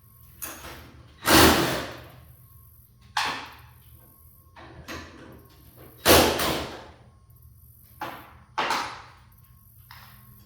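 A series of heavy bangs and knocks on garage door hardware, about seven at uneven intervals, the loudest about a second and a half in and again about six seconds in, each with a short ringing tail, as the door's opener arm is reset.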